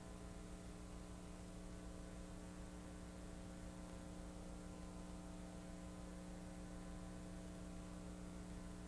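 Faint steady electrical hum with hiss; no drilling or cutting is heard.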